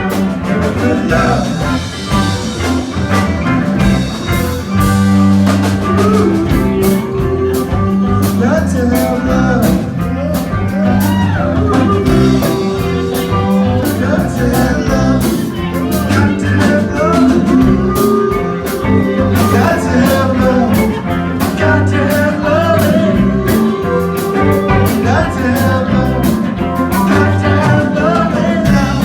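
A band playing a rock-and-roll song, a singer over a steady beat.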